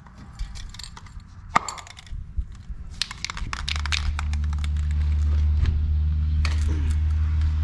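Clicks and rattles of handling, then about three and a half seconds in a machine starts up with a steady low electric hum and keeps running.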